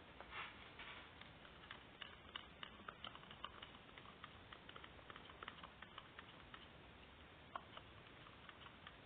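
Faint, irregular light clicks and taps, several a second, with a slightly louder click about half a second in and another a little past seven seconds.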